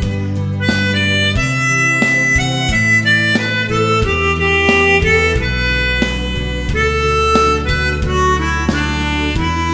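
Harmonica playing a slow melody in long held notes over a backing track with bass and plucked accompaniment.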